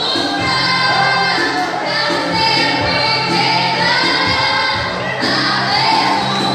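Group of voices singing a gospel song over instrumental accompaniment with steady held bass notes.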